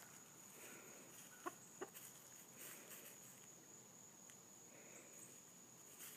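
Chickens clucking softly while foraging: two short clucks close together about a second and a half in. Faint rustling in dry leaf litter.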